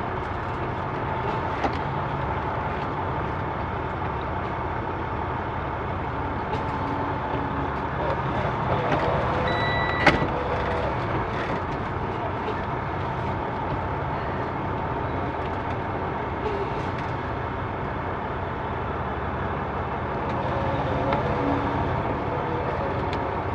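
Semi-truck diesel engine running steadily as the truck creeps slowly across a lot, with a short high beep and a sharp click about ten seconds in.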